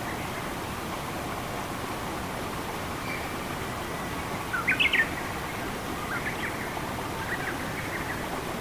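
Forest ambience: a steady rush of running water with small birds chirping over it. A quick run of rising chirps about halfway through is the loudest sound, followed by a few softer chirps.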